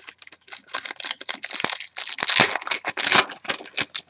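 Foil trading-card pack wrapper crinkling as it is torn open and pulled off the cards: a dense run of sharp crackles, loudest in the second half.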